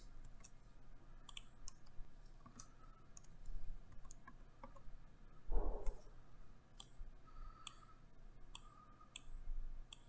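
Computer mouse clicks: scattered single clicks at irregular intervals. A soft low thump comes a little past halfway.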